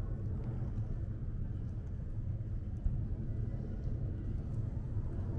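Steady low rumble of street traffic, with a few faint ticks over it.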